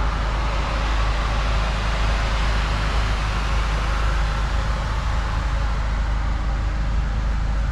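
Steady outdoor background noise: a constant deep rumble with an even hiss over it and no single sound standing out.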